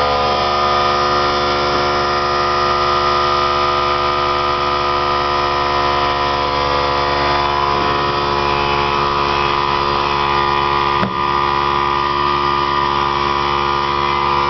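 Campbell Hausfeld oilless air compressor running steadily, filling its tank: an even, loud mechanical drone with a strong high hum. A brief tick about eleven seconds in.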